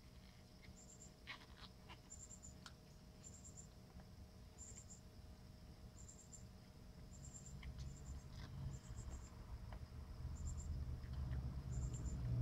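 Faint insect-like chirping, a short high chirp repeating about once a second, with a few light clicks of plastic parts being handled in the first seconds and a low rumble that grows louder near the end.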